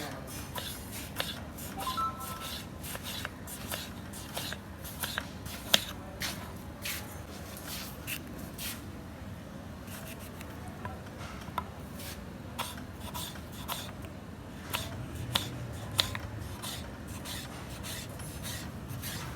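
Kitchen utensils scraping and clicking irregularly, with many short sharp clicks over a steady low hiss and a brief faint squeak about two seconds in.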